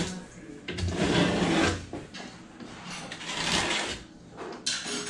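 Knife blade scraping paint from the ceiling around a bathroom exhaust fan's cover, in several rasping strokes about a second long.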